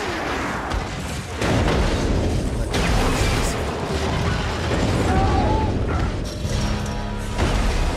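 Action-film soundtrack: music under a dense run of booms, crashes and clattering from a fight and wreck sequence.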